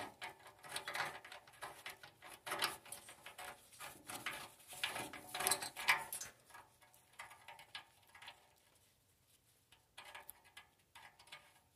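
Light metallic clicks and scrapes from a steering stem retaining nut being worked by hand onto its threads in a Yamaha Banshee frame's steering head. They come close together for the first several seconds, then thin out to a few faint ticks.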